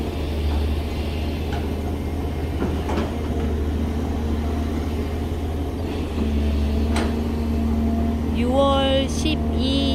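Volvo hydraulic excavator working close by: its diesel engine runs with a steady low drone while the boom and arm swing, and a steady tone joins about six seconds in. Near the end the pitch steps up and down under hydraulic load, with a sharp click about seven seconds in.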